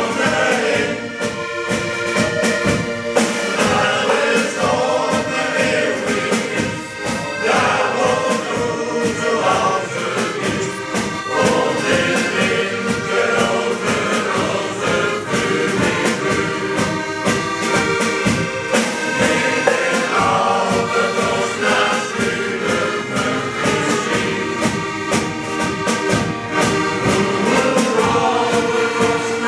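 Male shanty choir singing to accordion and drum-kit accompaniment.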